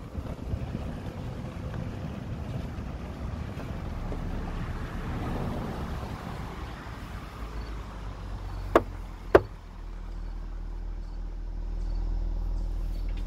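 A small vehicle driving over a dirt and gravel road: a low steady engine hum under rough road noise, with two sharp knocks about half a second apart just past the middle.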